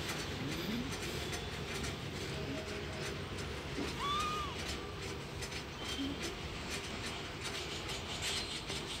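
A kitten gives one short, high mew about four seconds in, over a steady low background rumble.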